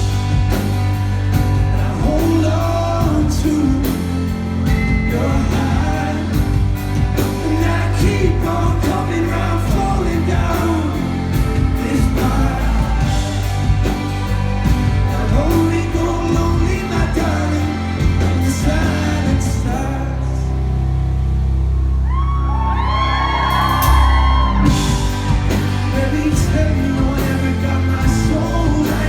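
Live rock band and singer playing in a large hall, with wordless, gliding vocal lines over the band and the crowd whooping and yelling, including a scream from the crowd a few seconds in. About twenty seconds in the drums and bass drop out briefly before a held, sliding vocal phrase.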